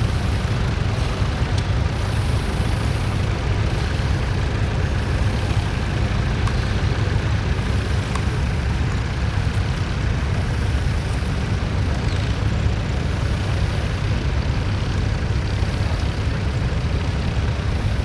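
Vintage tractor's engine running steadily while it pulls a mounted plough through the soil.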